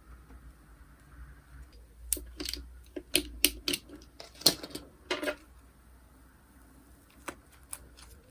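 Plastic slime containers and packaging being handled: a cluster of sharp clicks and crinkles about two to five seconds in, then two single clicks near the end.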